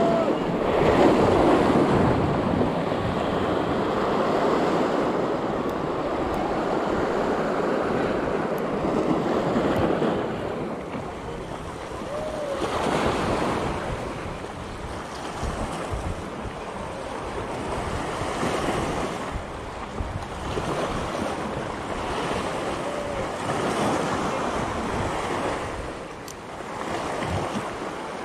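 Sea waves breaking and washing over shore rocks, the surf swelling and easing every few seconds, with wind buffeting the microphone.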